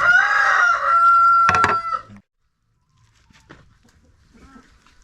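A rooster crowing once: a long call that rises, then holds one note for about two seconds before cutting off abruptly, with a sharp knock partway through. Only faint small knocks follow.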